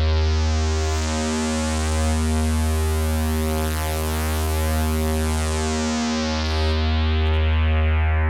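GS-101 synthesizer's three oscillators holding one low, buzzy note through its filter. The tone slowly brightens toward the middle and darkens again as the filter opens and closes. The oscillators beat slowly against each other.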